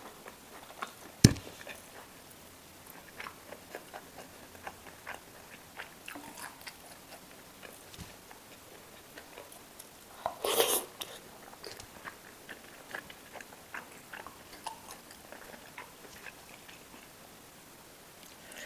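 A person chewing and biting food close to the microphone, with many small mouth clicks. There is a sharp knock a little over a second in, and a louder crackling burst lasting about half a second near the middle.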